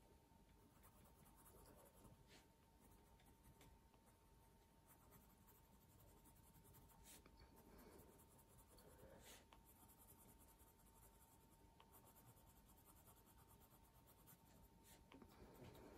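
Faint scratching of a coloured pencil shading across cartridge drawing paper, with a few light ticks.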